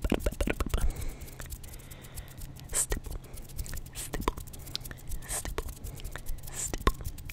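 Close-miked ASMR mouth and hand sounds: a rapid, irregular stream of crisp clicks and pops with a few short hisses, the hands flicking and plucking right at the microphone.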